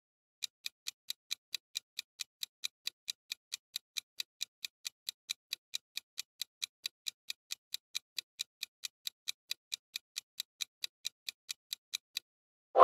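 Clock-ticking countdown sound effect, even sharp ticks at about four to five a second, counting down the answer time. Right at the end the ticking stops and a loud bright chime starts as the answer is revealed.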